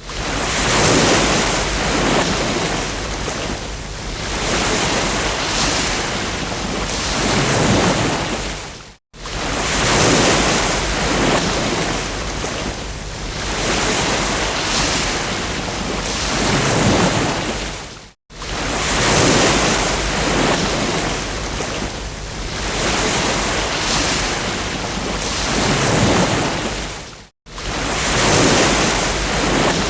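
Ocean surf breaking on a beach, swelling and ebbing every few seconds. The sound cuts out for an instant three times, about every nine seconds, where a short recording loops.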